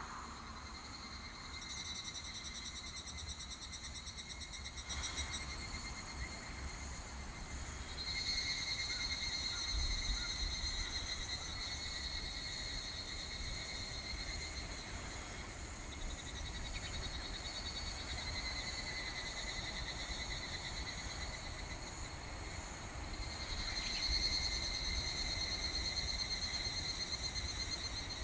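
Animal chorus of several high, steady trills overlapping, swelling and fading in turn, over a low rumble.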